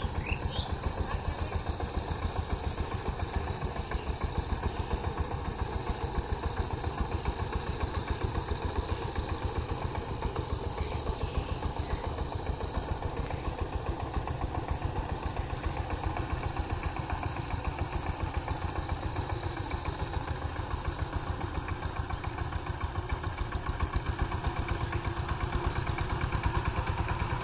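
Single-cylinder diesel engine of a two-wheel power tiller running steadily with a fast, even putter as the tiller is driven through a wet field; it gets a little louder near the end.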